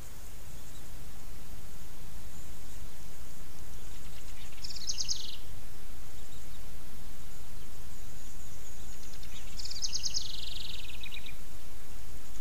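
A songbird sings two short, fast trills that fall in pitch, about four and a half seconds in and again about ten seconds in, over a steady low rumble.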